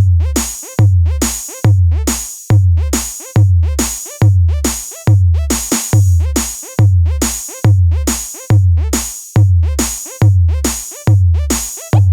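Electronic DJ remix music driven by a drum machine: a deep, booming kick that slides down in pitch, struck together with a bright crash-like hiss, repeating a little under once a second, with short quick stabs between the hits.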